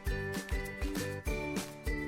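Background music: an upbeat, jingly tune with a steady beat, about two beats a second.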